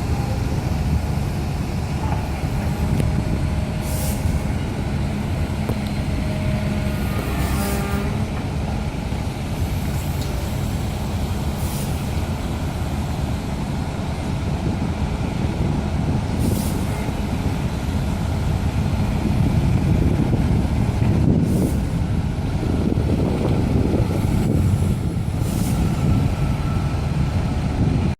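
Excavator-mounted hydraulic vibratory pile driver, a Daedong Maxbrio DPD850T on a Volvo EC480, driving a steel sheet pile: a loud, dense, steady low rumble from the vibrator and the excavator's diesel, heavier from about two-thirds in, with a brief sharp noise every four seconds or so.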